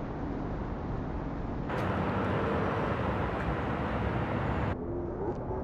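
Outdoor city street ambience: a steady hum of traffic and general street noise, its character changing abruptly twice.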